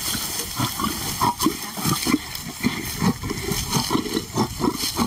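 Lion growling in a string of short, rough pulses, guarding meat from a lioness.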